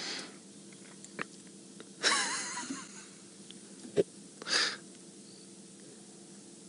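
A person's wheezy breath close to the microphone, lasting about a second from two seconds in, then a single sharp click and a short rush of breath just after four seconds, over a faint steady hum.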